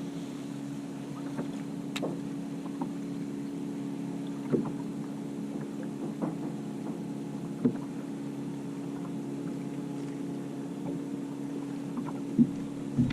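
Electric trolling motor running with a steady hum, with a few light clicks and knocks scattered through it.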